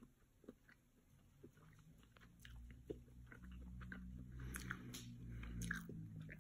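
Close-up chewing of a mouthful of seitan, with small wet mouth clicks and smacks that grow louder toward the end, over a low hum that starts about two seconds in.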